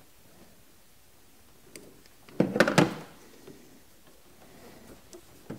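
Rubber vacuum hose being pushed onto the port of a new canister purge solenoid by hand: a light click about two seconds in, then a short, loud rubbing squeak lasting about half a second.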